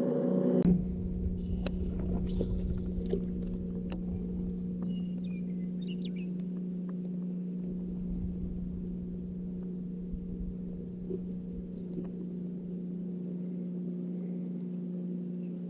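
A steady low hum holding one pitch throughout, with faint low rumble and a few small clicks.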